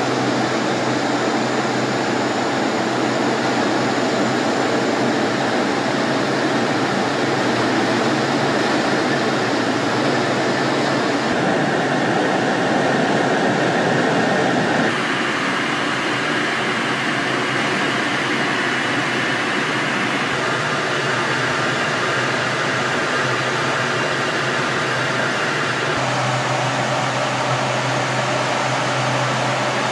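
Steady rushing cockpit noise inside a T-38 Talon in flight, the airflow and twin J85 turbojets blending into an even roar. Its tone shifts abruptly several times.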